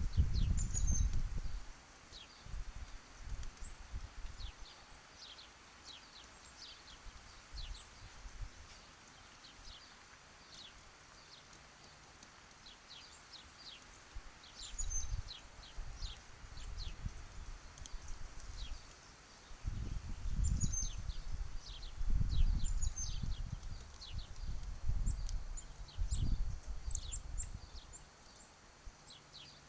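Downy woodpecker pecking at peanuts in a feeder: dull, irregular taps in bursts, near the start and again through the second half. Small birds chirp in short, high, falling notes throughout.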